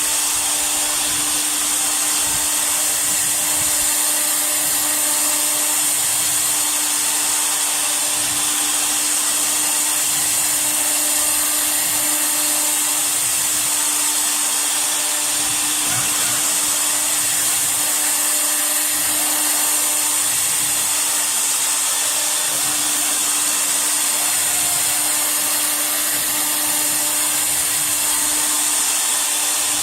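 Air-cooled spindle of a CNC router running at a constant speed while carving MDF: a steady whine over a hiss, unchanged throughout.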